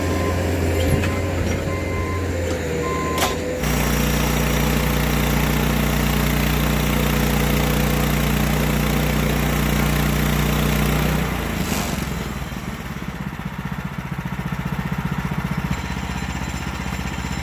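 Gas engine of a portable band sawmill running steadily. A sharp click about three and a half seconds in is followed by a steady engine hum. About eleven seconds in the engine drops to a lower, rougher idle with another click.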